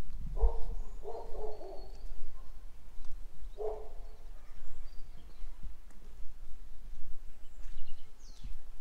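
Outdoor ambience with a few bird calls: three short, pitched calls in the first four seconds and faint high chirps near the end, over a low steady rumble.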